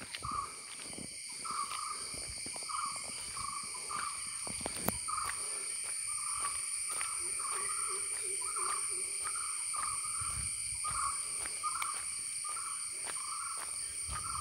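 Insects droning steadily in several high, even tones, while a bird repeats one short call over and over, about three times every two seconds. Faint soft thumps of footsteps on the walk sit underneath.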